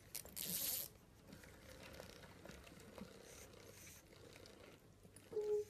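Pug chewing and mouthing a plush toy: soft rustling and mouth sounds, with a short hiss about half a second in and a brief steady note near the end.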